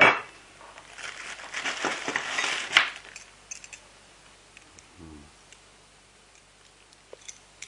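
Metal router accessories being handled: a knock, then rustling and scraping that ends in a sharp metallic clink about three seconds in, followed by a few faint clicks.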